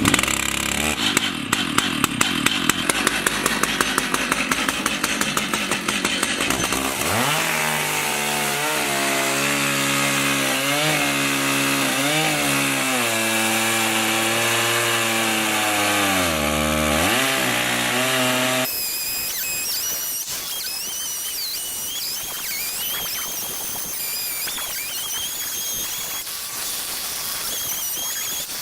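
Stihl 880 chainsaw on an Alaskan mill, started on full choke, running rough in an even beat of about five pulses a second. At about seven seconds it revs up and the engine pitch swings up and down repeatedly. At about nineteen seconds the sound changes suddenly to a thinner, wavering whine.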